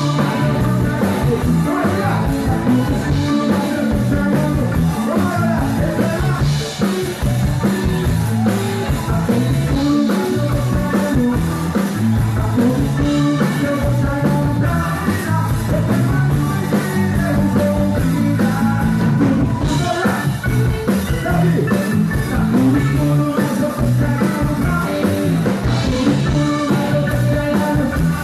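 Upbeat band music with drum kit, guitar and keyboard and singing over a steady driving beat.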